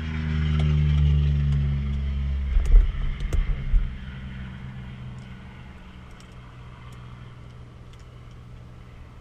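Light aircraft's piston engine being shut down after parking: it runs down in pitch, gives a few last shuddering thumps about three seconds in as the propeller stops, and then only a faint steady hum remains.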